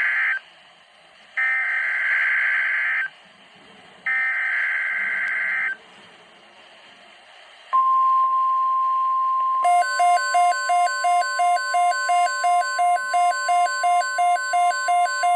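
NOAA Weather Radio Emergency Alert System tornado watch alert: three short bursts of SAME digital header data, then the steady 1050 Hz weather radio alert tone. About two seconds into the tone, a second, pulsing beep joins it at about three to four beeps a second.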